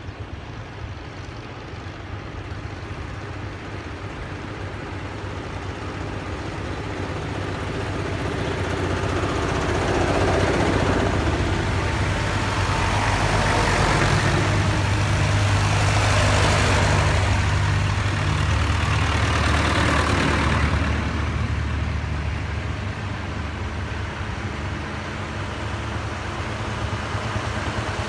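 Engines of vintage farm tractors running as they drive past one after another. The sound builds to its loudest around the middle as the first tractor goes by, its note dropping as it passes, then eases and builds again as the next tractor comes near.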